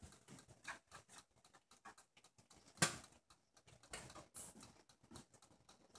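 Quiet handling sounds as Swiss meringue is piped from a silicone piping bag onto a cake: scattered faint squishes and taps, with one sharper click about three seconds in.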